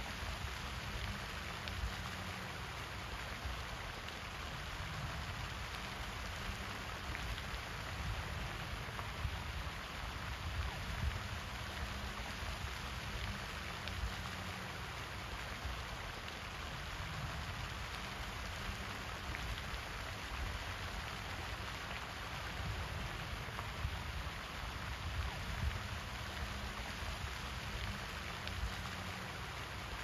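Pond spray fountain: water jetting up and falling back onto the pond surface in a steady splashing hiss, like rain, with a low rumble underneath.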